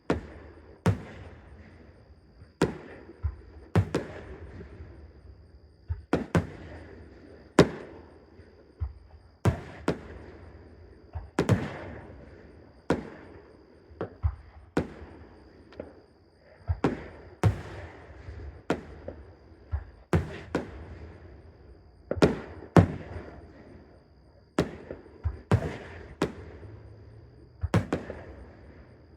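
Aerial fireworks shells bursting in a steady barrage, sharp booms roughly once a second, some in quick pairs, each trailing off in an echo.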